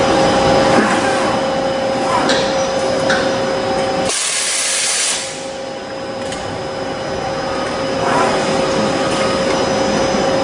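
Doosan PUMA QL300H CNC turning center running, with a steady high whine over machining noise and a few clicks. About four seconds in comes a loud hiss lasting about a second.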